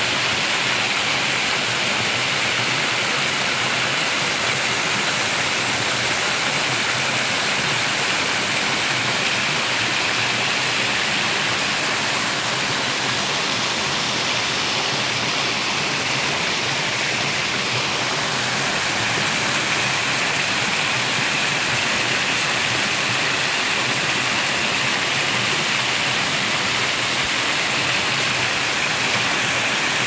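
Small waterfall spilling over layered rock ledges and splashing into a shallow pool: a steady rush of falling water.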